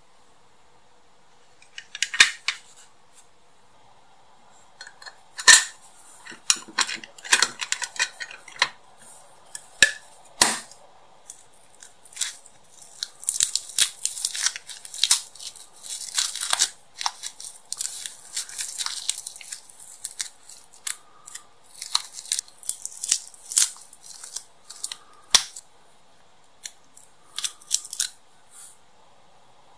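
Close-up handling of small plastic model-car parts: scattered sharp clicks and taps, with a long stretch of dry scratching and scraping in the middle as paint is picked and peeled off a part.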